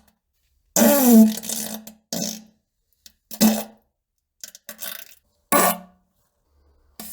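A run of about six farts. The longest and loudest comes about a second in, with a wavering pitch, and shorter ones follow at uneven gaps.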